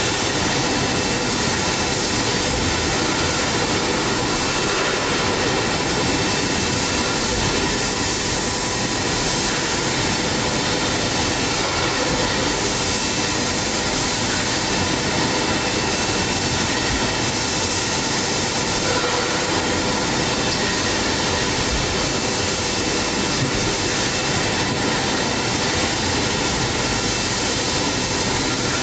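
Automatic bottle labeling machine and its conveyor running: a steady, even mechanical noise with a few faint thin whining tones.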